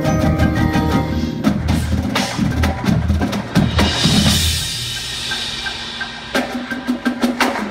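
Marching band percussion playing: drum hits in a steady rhythm through the first half, a cymbal wash near the middle, then a quick run of sharp clicks near the end.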